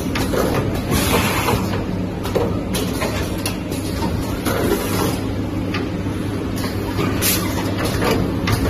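Automatic POF-film shrink-wrapping machine running: a steady low motor hum, with short bursts of air hiss and clacks from its pneumatic cylinders several times as it moves boxes and seals and cuts the film.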